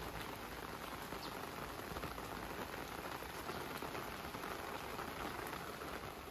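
Steady rain falling on a garden's wet brick paving and plants: an even hiss with a few faint drip ticks.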